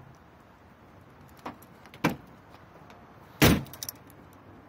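Three sharp knocks, the last and loudest about three and a half seconds in, followed by a few lighter clicks.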